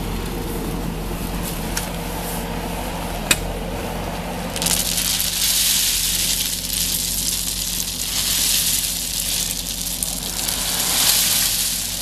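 Skid-steer loader engine running, then, about four and a half seconds in, its bucket tips a load of crushed stone onto the path: a long rattling rush of pouring stones over the engine that lasts about seven seconds.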